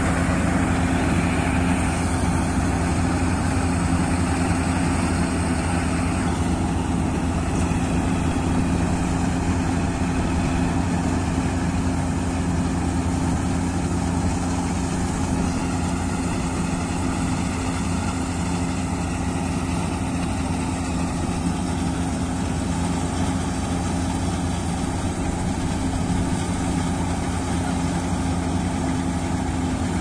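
Combine harvester running steadily as it cuts and threshes wheat: an even engine drone with the noise of its working machinery.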